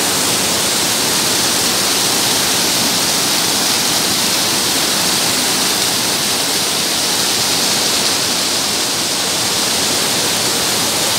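Fast, rocky mountain stream rushing over boulders in white water, a loud and steady rush with no breaks.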